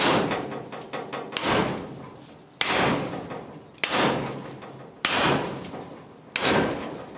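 A 10-pound sledgehammer striking a welded steel I-beam six times, about one blow every 1.2 seconds, each hit ringing and fading away. It is a strike test of freshly laid arc and MIG welds.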